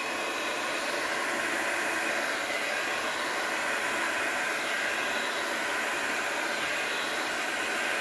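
Handheld hair dryer blowing steadily onto wet paint, a constant even rush of air with no change in speed.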